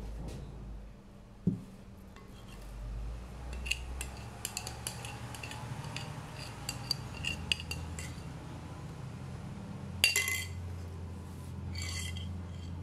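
Kitchen utensils clinking and knocking against an aluminium cake pan and mixing bowl as cake batter is scraped into the pan. There is a run of small light clicks, then a louder clatter about ten seconds in.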